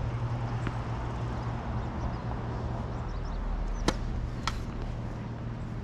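Tennis ball on a racket: two sharp pops about half a second apart, the first the louder. A steady low hum runs underneath.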